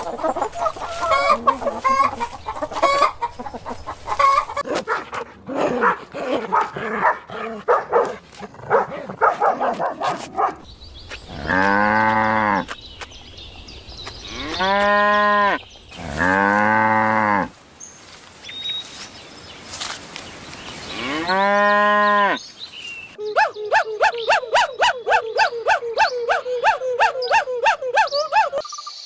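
Chickens clucking for the first several seconds, then a cow mooing four times in long, low calls. Near the end, a fast, even run of short repeated calls.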